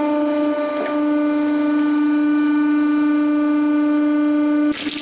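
Hydraulic press running with a loud, steady hum as the ram lowers onto plastic rings of cap-gun caps. Near the end the hum drops and a sudden burst of noise cuts in as the caps are crushed and go off.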